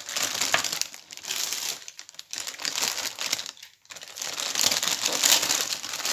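Clear plastic packaging crinkling as it is handled, in irregular spells with brief lulls about two seconds in and just before four seconds, louder near the end.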